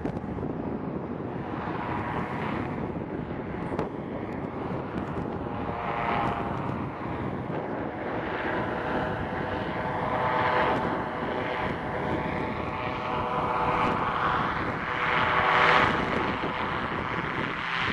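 Powered parachute's engine and propeller droning in flight, swelling louder a few times and loudest near the end, over a rumble of wind.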